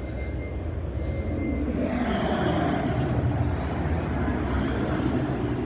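Outdoor traffic rumble with a passing vehicle that swells about two seconds in and fades toward the end.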